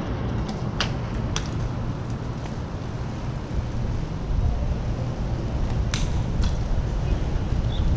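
Wind rushing over the microphone of a camera on a moving bicycle, over a low street-traffic rumble. A few sharp clicks come through, two in the first second and a half and two more about six seconds in.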